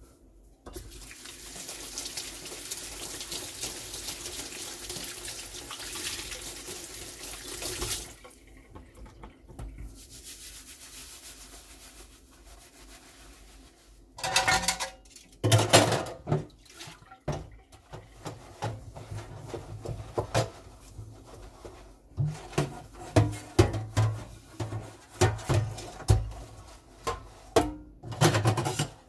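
Kitchen mixer tap running into a stainless steel sink as a steady hiss, which stops about a third of the way in. Dishes then clank loudly a couple of times against the steel. Near the end a stainless steel colander is scrubbed in quick, repeated strokes.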